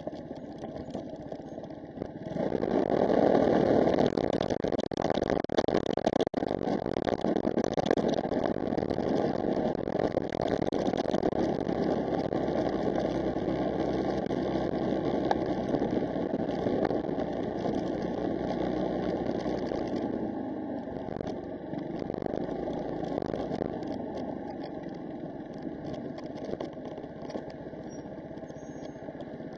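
Vehicle engine running with road noise, recorded by an onboard dashcam; it swells loudest a couple of seconds in, then settles into a steady drone that eases slightly near the end.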